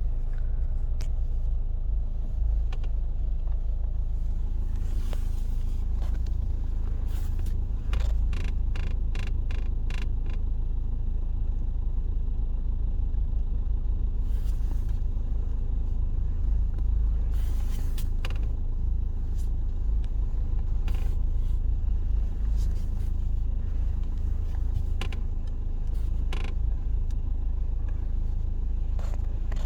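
Duster 2 diesel engine idling steadily, with intermittent short creaks from the steering column as the steering wheel is turned, including a quick run of them in the first third. The owner suspects the electric power steering, since the squeak stops with the engine off.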